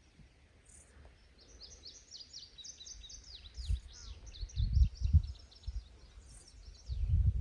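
A songbird singing a long, rapid twittering song of quick high chirps for several seconds. Loud low rumbles break in twice, about halfway and near the end.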